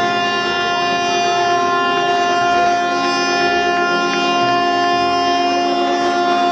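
Several ship horns and sirens sounding together in one long, steady, unchanging chord as the ship is launched.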